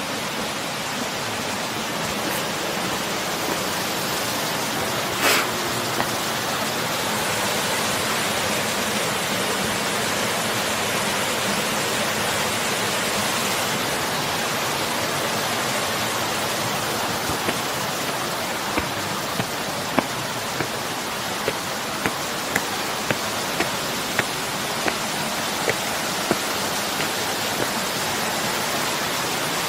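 Steady rushing of water along the trail. About five seconds in there is one sharp knock, and from about halfway on there are short sharp ticks of footsteps, nearly two a second.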